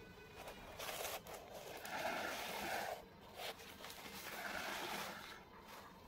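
Paper rustling and a notebook scraping on a hard floor as it is handled and laid down: two longer rustles, about two and four and a half seconds in, among a few short taps.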